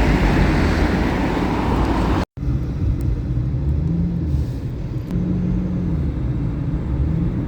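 Road traffic noise, then after an abrupt cut about two seconds in, the lower, steadier rumble of a car in motion with a slowly rising and falling engine hum.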